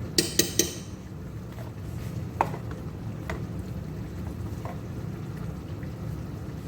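A metal spoon clinking against a cooking pot: three quick ringing clinks in the first second, then a few lighter taps, over a steady low hum.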